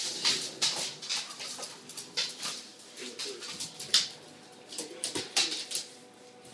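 A pit bull puppy and a large black dog playing tug-of-war over a toy: quick scuffling and scrabbling of paws on a hardwood floor, with a few short whiny dog vocalisations.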